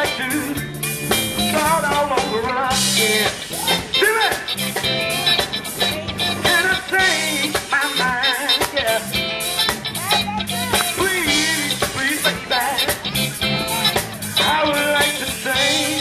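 Live blues and soul band playing: electric bass, electric guitar, drum kit and keyboard, with a male lead voice singing over them.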